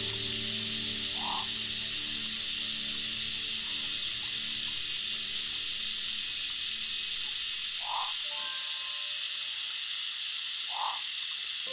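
A steady high-pitched hiss of forest background sound, with three short chirps spread through it. Soft background music fades out in the first part.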